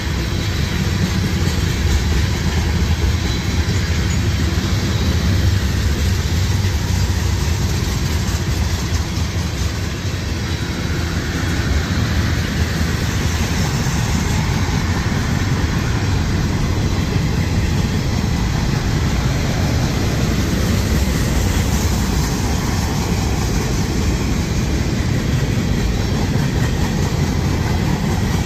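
Freight cars of a CSX manifest train rolling past: tank cars, then covered hoppers, with a steady low rumble of steel wheels on rail.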